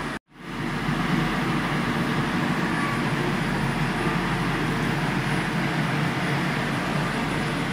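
Steady machinery noise in a machine shop: an even rumble and hiss with no distinct rhythm. It cuts out for a moment just after the start and swells back within about a second.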